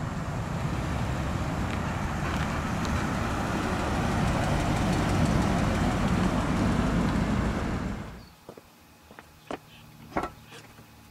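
1965 AMC Rambler Marlin with its 327 V8 driving past, engine and tyres getting louder as it comes near. The sound cuts off abruptly about eight seconds in, leaving a much quieter stretch with a few faint clicks.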